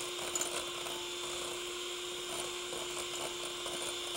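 Electric hand mixer running with a steady hum, its beaters whipping egg yolks in a glass bowl until they turn thick and sticky: the preliminary beating for homemade mayonnaise.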